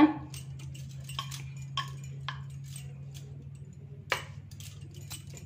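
Glass and metal bangles clinking on a wrist as the rolled dough is handled: a few separate light clinks, the loudest about four seconds in, over a steady low hum.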